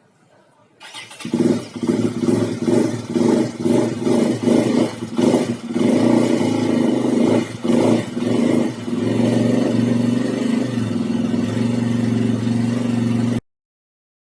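An engine revving in short repeated blips, then running steadily, before the sound cuts off abruptly near the end.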